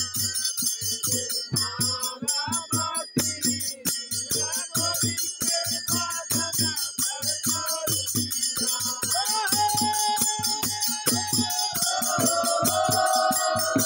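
Holi folk song (Holi geet) sung by a group of men to a steady drum beat, with small hand cymbals jingling all the way through. In the second half the voices hold long drawn-out notes.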